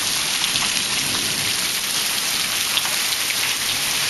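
Heavy monsoon rain falling steadily, with water pouring off the edge of a roof that has no rain gutters.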